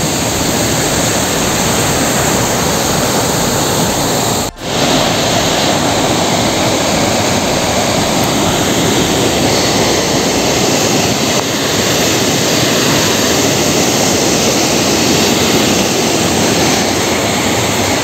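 Waterfall rushing steadily at close range, a loud and even roar of falling water. It cuts out for an instant about four and a half seconds in.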